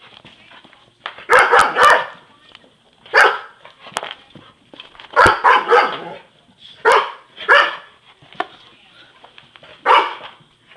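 A dog barking during play: about ten short, sharp barks, in clusters of one to three.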